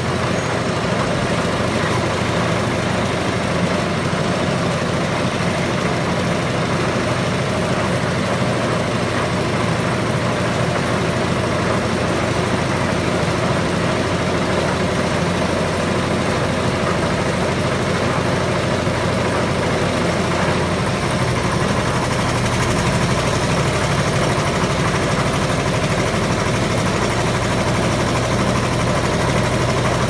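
Concrete mixer with lift running, a steady mechanical drone from its engine. The low hum grows stronger about two-thirds of the way through.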